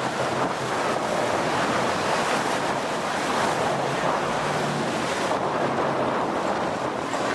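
Sea water washing against the boat and wind buffeting the microphone, over the low steady hum of the boat's engine running.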